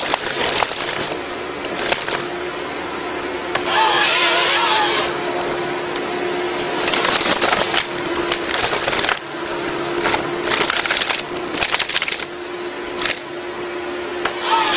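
A tree-cutting machine running steadily with a constant hum, biting into wood in about six loud rushing bursts of a second or so each, with splintering noise as it cuts.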